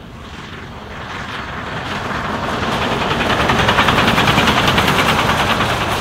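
Preserved New Zealand steam locomotive working hard at speed, its exhaust beats coming fast and even. It grows louder as it draws level, loudest about four seconds in, then eases slightly as it passes.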